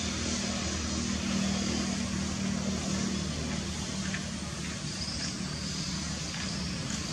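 Steady low mechanical hum, like a motor running, under constant background noise.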